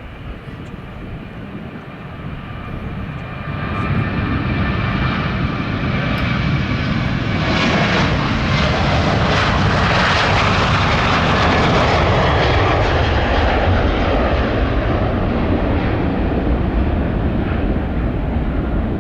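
Jet airliner engines passing close by: the noise swells over the first few seconds, holds loud through the middle, then eases with a falling pitch as the aircraft moves away.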